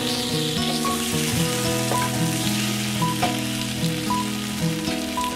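Meat sizzling on the grates of a portable gas grill, a steady hiss, under background instrumental music with a melody of held notes.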